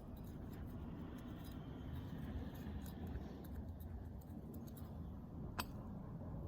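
Faint handling of pistons and connecting rods: scattered light ticks over a low steady hum, with one sharp click a little past five and a half seconds in.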